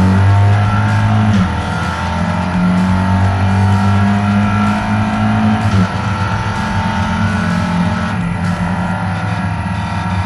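Race car engine heard from inside the cockpit, pulling hard under load. Its pitch climbs as the car accelerates, and the note breaks off at gear changes about a second and a half in and again near six seconds.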